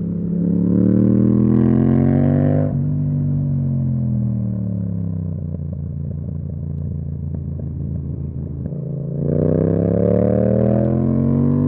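Yamaha MT-07's 689 cc parallel-twin engine through an Akrapovic exhaust under acceleration: the note rises, drops sharply about three seconds in as the throttle closes, falls away as the bike slows, holds low for a few seconds, then climbs again near the end.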